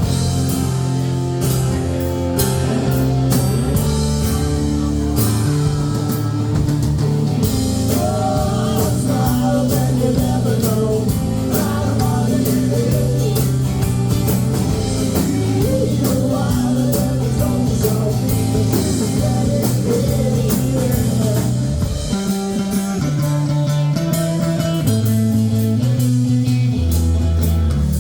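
Rock band playing live through an instrumental stretch of the song, with guitar over bass and drums.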